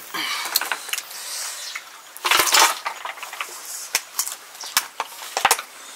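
Cooked river snails being sucked out of their shells: short noisy slurps, the loudest about two seconds in, among scattered clicks of shells against metal plates and bowls.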